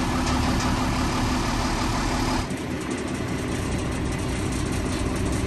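An engine idling steadily. About two and a half seconds in, the higher hiss drops away abruptly while the low running carries on.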